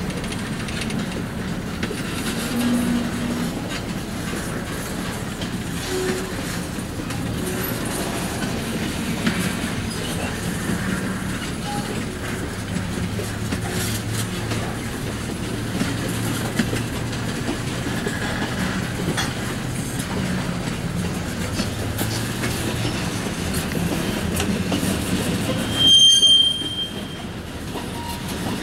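Freight cars rolling slowly during shunting, with a steady rumble and rattle of wheels on rail. Near the end, one short, loud, high-pitched squeal of wheels against the rail.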